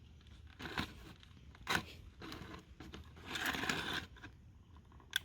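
Handling noise from the plastic parts of a solar light: several short scrapes and crunches, a longer scrape about three seconds in, and two sharp clicks at the end.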